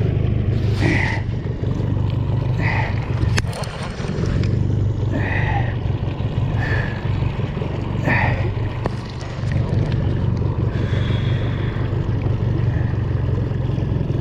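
A small boat's outboard motor running steadily under wind and water noise, with short higher-pitched blips every second or two.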